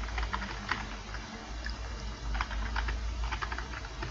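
Computer keyboard being typed on, an irregular run of key clicks as code is entered, over a low steady hum.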